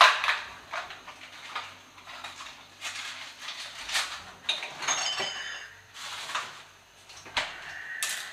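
Kitchen clatter: scattered clinks and knocks of containers and utensils being handled, with a short ringing clink about five seconds in.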